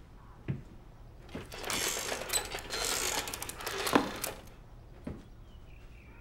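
Rapid clattering and rattling of objects being handled at a wooden desk, lasting about three seconds and ending with a loud knock about four seconds in; single knocks come shortly before and after it.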